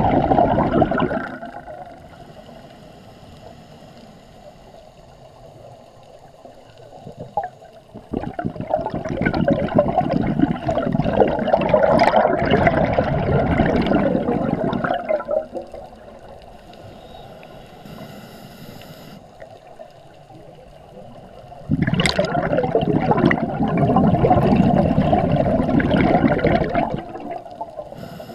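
Scuba regulator exhaust bubbles gurgling and rushing as a diver breathes out, in long bursts of several seconds each. One burst fades in the first second or two, and two more come at about 8 s and 22 s, with quieter gaps between them while the diver breathes in.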